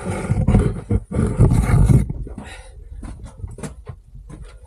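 A person's loud, rough breathing and grunting with effort for about two seconds, then quieter scattered scrapes and crunches of steps on loose dirt and stone.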